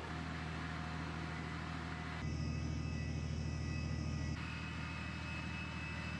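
Heavy diesel engine of a Tornado-S rocket-launcher truck running with a steady low hum, the sound shifting abruptly about two and four seconds in.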